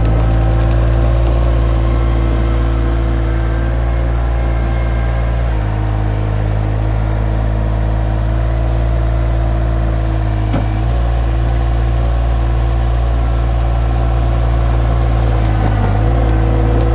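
Mini skid steer engine running steadily under throttle, its note dipping briefly a few times as the load changes.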